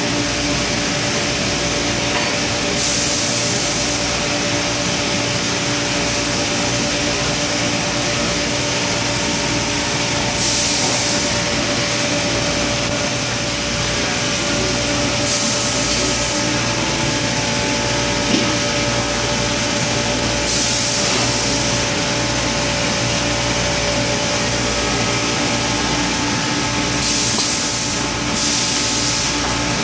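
Automatic rotary card press laminator running: a steady machine hum with several steady tones, broken by about six short hisses, each lasting about a second. There is a single sharp click about two thirds of the way through.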